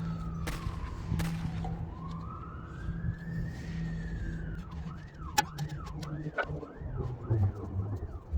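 An emergency vehicle's siren: a slow wail that falls, rises and falls again, then switches to a fast yelp of about two sweeps a second. A steady low hum and a few sharp knocks run underneath.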